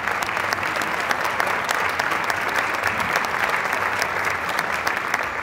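Audience applauding: dense, steady clapping from many hands filling the hall.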